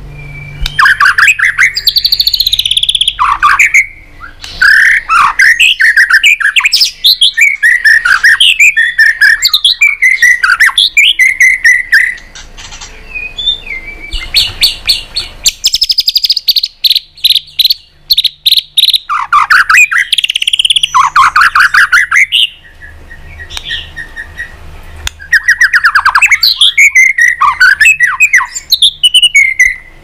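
White-rumped shama singing loud, varied phrases of sweeping whistles and rapid trills, with short pauses about twelve and twenty-three seconds in.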